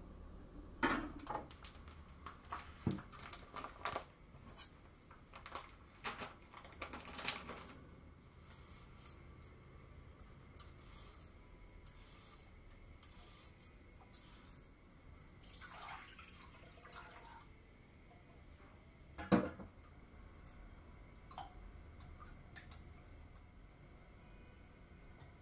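Quiet kitchen handling sounds: a run of light clicks, taps and clinks of cookware and utensils in the first few seconds, then sparser soft scrapes and taps, with one louder knock a little past the middle.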